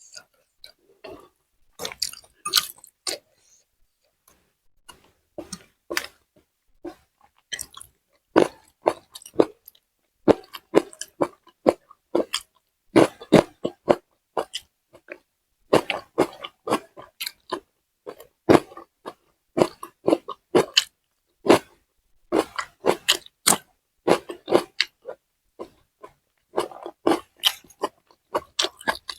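A person biting and chewing food close to the microphone: irregular, sharp crunchy clicks of mouth sounds. They are sparse at first and come thick and fast from about eight seconds in.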